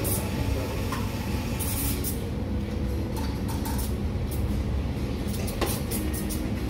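Steady low rumble of espresso bar machinery, with a short hiss about a second and a half in and a few clicks and knocks of handled equipment near the end.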